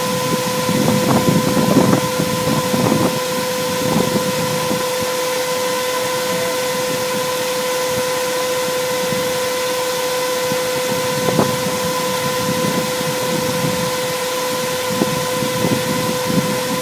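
Stretched Land Cruiser limousine driving over sand dunes: engine noise with irregular low buffeting gusts, under a steady high-pitched whine that holds one pitch throughout.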